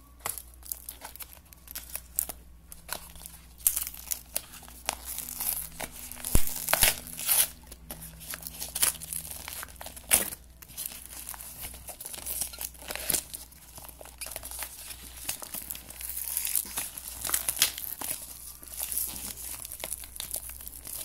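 A padded mailer envelope with a bubble-plastic lining crinkling and tearing as it is handled and opened by hand. Irregular rustles and rips, loudest about six to seven seconds in.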